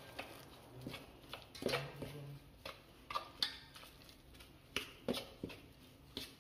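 Steel spoon scraping and clinking against a stainless steel bowl in irregular strokes as rice flour is stirred with boiling water into dough.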